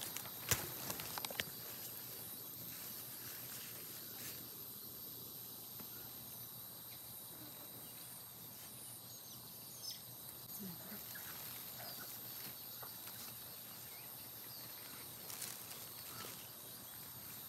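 Quiet outdoor ambience: a steady faint hiss with a few sharp clicks from the vines being handled in the first second or two, and scattered faint short chirps from small animals.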